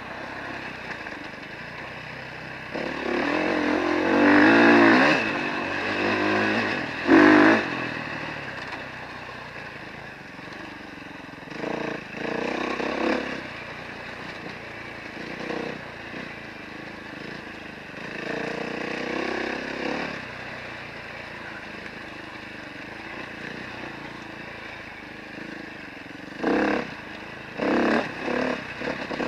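Off-road vehicle engine running as it is ridden along a dirt trail, with repeated bursts of throttle: a long one about four seconds in, a short loud one about seven seconds in, and a cluster of quick ones near the end.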